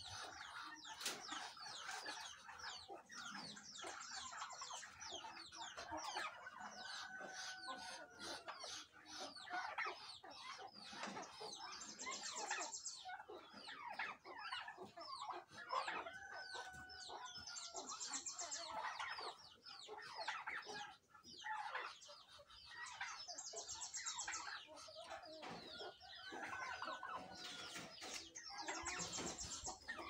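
A backyard flock of chickens clucking and calling continuously, with a rooster crowing about three times.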